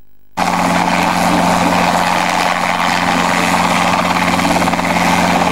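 Junkers Ju 52's radial engines running steadily on the ground, a loud, even propeller drone with a low hum. It cuts in suddenly about half a second in.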